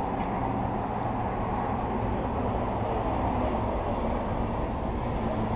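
Steady low rumble of a GE diesel locomotive engine idling, heard from inside the engine compartment.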